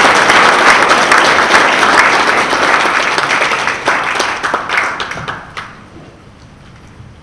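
Audience applauding. The clapping thins out and dies away about five and a half seconds in.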